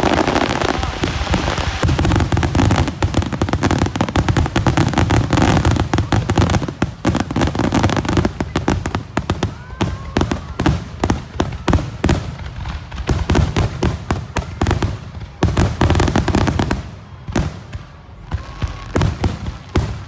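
Fireworks finale: a rapid, near-continuous barrage of aerial shell bangs and crackles, gradually thinning into more separate booms, with a brief lull about seventeen seconds in.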